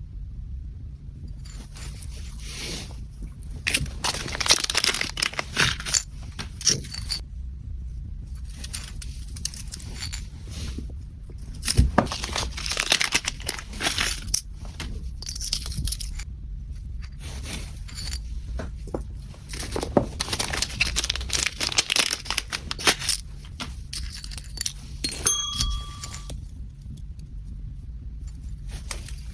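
Packaging being handled: paper or plastic wrap crinkling and tearing in irregular bursts over a low steady hum, with a short high tone near the end.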